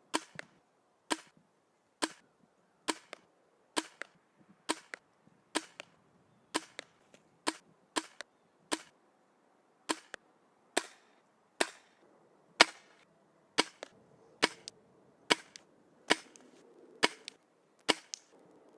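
Airsoft gun firing single shots at a steady pace of roughly one a second, each a sharp snap, many followed a moment later by a fainter second click.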